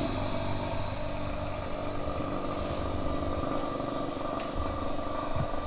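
Vacuum pump of a BM05 screen laminator running as a steady hum, pumping the laminating chamber down toward full vacuum at the start of an automatic laminating cycle.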